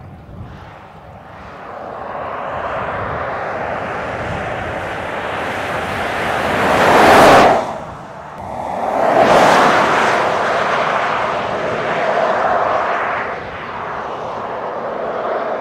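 Land Rover Defender 90 P300 with its 2.0-litre turbocharged four-cylinder engine driving past at speed, its engine and tyre noise swelling as it approaches, loudest in two close surges around the middle, then fading as it drives away.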